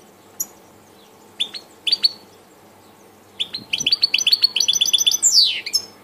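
European goldfinch singing: a few short, high chirps, then from about halfway a fast run of repeated notes that ends in a long falling sweep.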